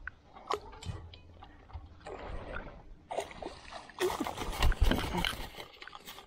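A hooked northern pike splashing at the lake surface as it is scooped into a landing net, with a loud burst of splashing from about four seconds in lasting roughly two seconds.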